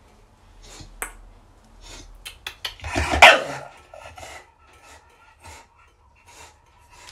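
Light metallic clicks and rattles from a wire dog crate, then one short bark from an American bully puppy about three seconds in.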